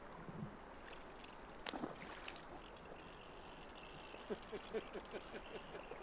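River current running steadily around the legs of wading anglers. A single sharp click comes nearly two seconds in, and a quick run of light ticks follows near the end.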